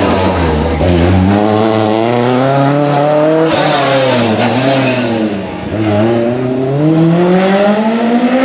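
Lancia Rally 037's supercharged four-cylinder engine accelerating hard, its pitch climbing, dropping sharply at a gear change, easing off briefly about two-thirds of the way through, then climbing again under full throttle.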